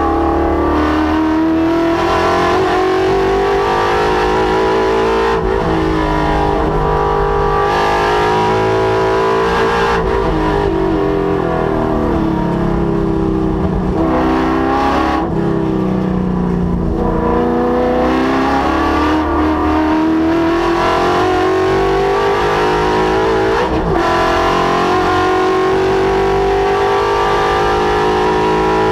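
Ford Coyote 5.0-litre V8 in a Mustang at full throttle on a race track, its pitch climbing through each gear and dropping sharply at each upshift. Around the middle the engine note falls away as it slows and gears down, then it climbs hard again through the gears.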